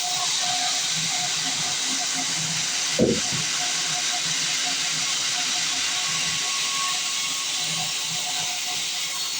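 Sawmill band saw running through a log, a steady hissing cutting noise, with one short low thump about three seconds in.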